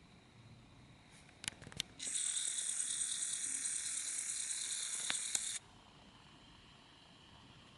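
A camera's lens zoom motor whirring for about three and a half seconds, starting and stopping abruptly, with a few small clicks before and near the end.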